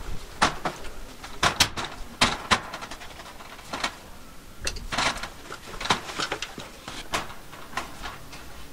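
Steel J trim being worked into place by hand under ribbed steel wall panels: irregular light clicks, taps and scrapes of thin sheet metal.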